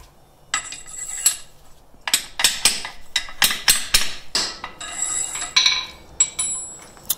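A ball-peen hammer taps a steel collar down the axle shaft onto the new bearing of a Toyota semi-float rear axle, making a quick series of sharp metallic taps with ringing from about two to five seconds in. Lighter clinks of steel parts being handled come before and after the taps.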